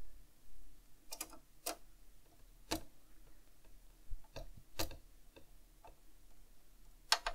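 A small screw being driven by hand into a model car's frame: a handful of light, irregular clicks and ticks of the screwdriver and parts, spaced a second or so apart.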